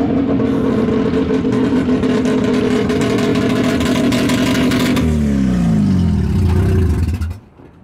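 Naturally aspirated Mazda 13B rotary engine in a Suzuki Carry kei truck held at steady high revs under power, then the revs fall away about five seconds in as it comes off the throttle. It settles to a lower, steady run before the sound stops abruptly near the end.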